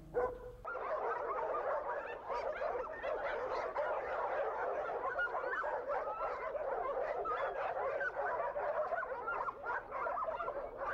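Dense, continuous chorus of many kennelled dogs barking over one another, heard from afar as one steady din.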